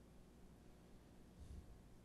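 Near silence: room tone, with one faint low bump about one and a half seconds in.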